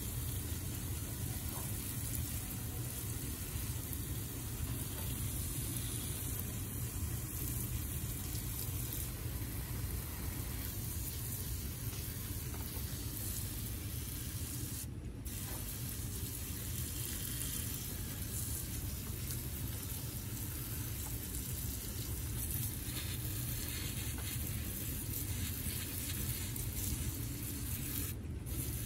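Steady hiss of water spraying from a garden hose spray wand onto potted succulents, breaking off very briefly about halfway through and again near the end.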